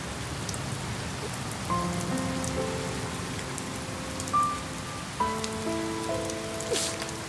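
Heavy rain pouring steadily onto a paved road. About two seconds in, soft background music with long held notes comes in over it.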